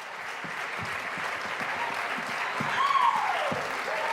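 Audience applauding, with one cheer near the middle that slides down in pitch.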